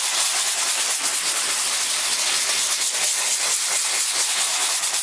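80-grit sandpaper rubbed back and forth by hand over a fiberglass body panel, a steady scratchy hiss. The surface around the repair is being roughened so the new fiberglass can bond to it.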